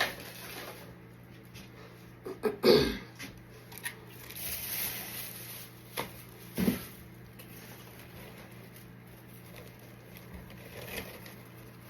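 Handling noise from decorating ribbon being worked onto a Christmas tree: rustling and a few sudden knocks, the loudest about two and a half seconds in, over a steady low hum.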